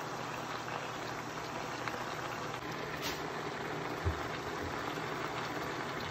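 Chicken and shrimp simmering in sauce in a frying pan, the sauce sizzling and bubbling steadily, with a light click about three seconds in and a soft knock about a second later.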